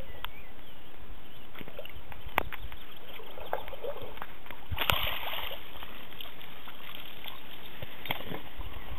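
Handling noise from a hand-held recording device: light knocks, then a loud rub of the microphone against a jacket just before the middle, over a steady hiss of outdoor air.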